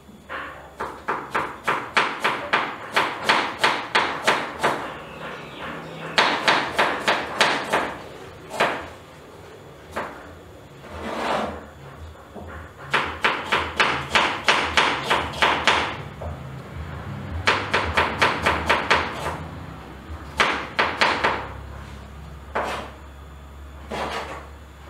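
Kitchen knife chopping a red onion, the blade knocking on the cutting surface in quick runs of about three to four strokes a second, with short pauses and a few single cuts between runs.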